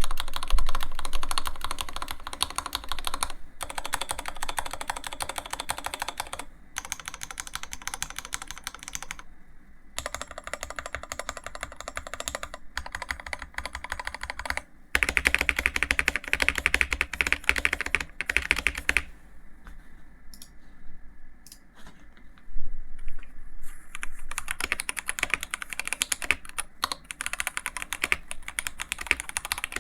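Iqunix F97 mechanical keyboard being typed on: dense, rapid keystrokes, in several stretches that change abruptly in tone and loudness.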